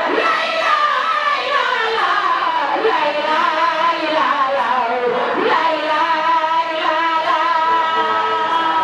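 A crowd of women singing a religious chant together, in long held notes that bend between pitches.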